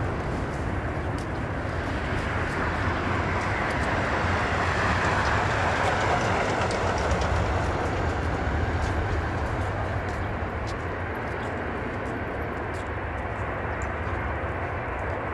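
Jet engine roar from a Boeing 777-200ER's Rolls-Royce Trent engines during its takeoff. A steady rumbling roar swells to its loudest about five to seven seconds in, then eases off gradually.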